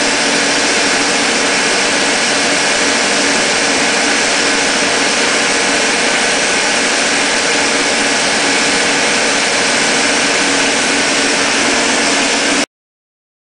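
Kearney & Trecker No. 3CH vertical milling machine running under power, its 7-1/2 HP three-phase motor and gear drive giving a steady hum over a broad hiss. The sound cuts off suddenly near the end.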